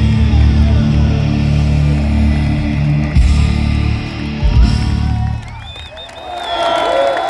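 Hard rock band playing live at full volume, with distorted electric guitars, bass and drums. It closes on two big hits and stops about five seconds in, and the crowd cheers and whistles.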